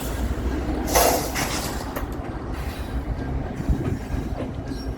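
Freight train rolling past with a steady low rumble, a brief hiss about a second in and a single click a second later.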